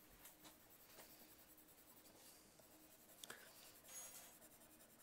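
Faint scratching of a watercolour pencil on watercolour paper as a balloon shape is coloured in with small strokes, with a light tick a little past three seconds in.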